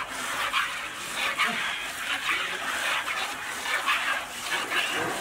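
Buffalo being hand-milked: milk squirting in quick strokes into a plastic bucket, about two hissing squirts a second.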